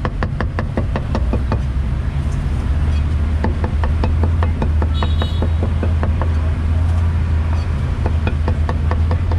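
Steel cleaver chopping cooked pork on a thick wooden chopping block, quick sharp knocks at about five a second. Under it a steady low rumble of street traffic, growing louder a couple of seconds in.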